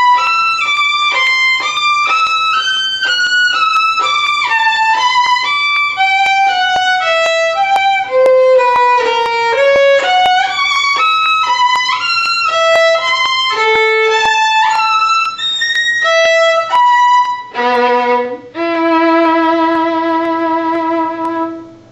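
Violin playing an unaccompanied run of fast, even notes. About 17 s in it breaks into a short chord, then settles on one long held final note that dies away near the end.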